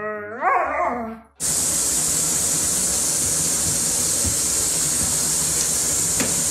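A dog's howl that rises and falls and stops after about a second. About a second and a half in, it gives way to the steady hiss of a faucet running into a bathtub full of bubble bath.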